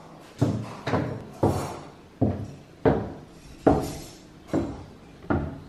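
Footsteps on hard indoor floors, wood and then tile: about eight heavy steps in an even walking rhythm, each a sharp knock that rings out briefly.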